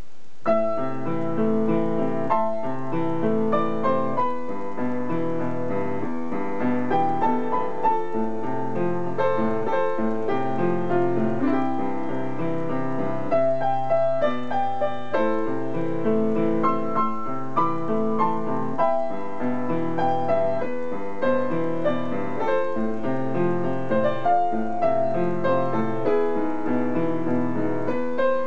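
Upright piano played solo: a pop-song arrangement with a repeating low bass line under chords and a melody, the notes starting about half a second in.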